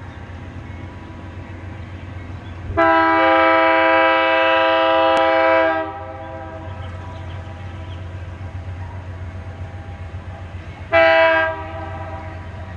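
Diesel freight locomotive's air horn sounding a chord: one long blast of about three seconds, then a short blast some five seconds later. Under it runs the steady low rumble of the approaching locomotive.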